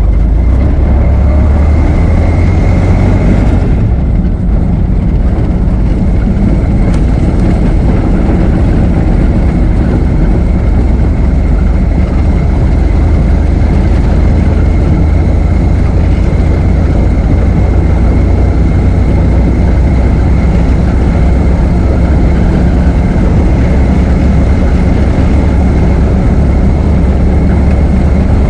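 Ford Model T's four-cylinder engine running as the car is driven, steady and loud with a low rumble and a thin steady whine above it. It eases briefly about four seconds in.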